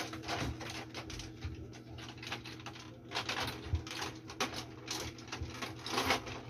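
Plastic toy cups, plates and cutlery rattling and clattering on a plastic toy tea trolley as it is pushed and handled, in a run of quick irregular clicks over a steady low hum.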